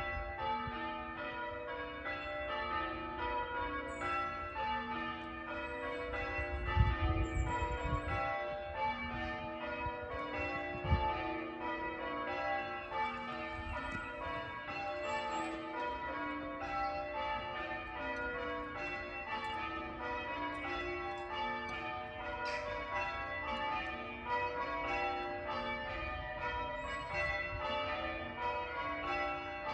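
Church bells being rung in changes, a rapid, even succession of overlapping struck peals that carries on throughout. Two brief low rumbles about seven and eleven seconds in are the loudest moments.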